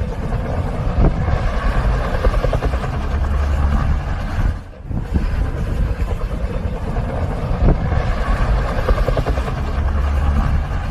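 Wind buffeting a phone's microphone: a steady rush with heavy low rumbling gusts, broken by a short dip about four and a half seconds in.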